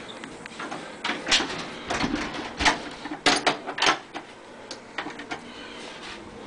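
Camera handling noise: a run of sharp knocks and clicks, bunched between about one and four seconds in.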